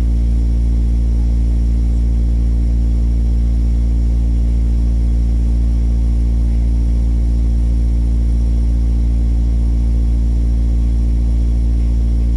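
Loud, steady low mechanical hum with a stack of even overtones, unchanging throughout: machinery or an engine running at a constant speed.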